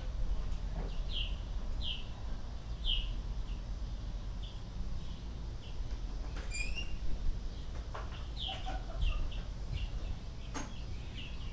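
Small birds chirping: short, high, downward-sliding chirps repeating every second or so, with one quick run of rising notes midway, over a low steady rumble.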